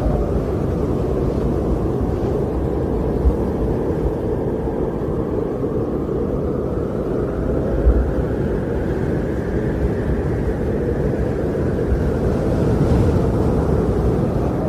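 Wind blowing steadily, a low rushing sound with a few brief low thumps, swelling slightly near the end.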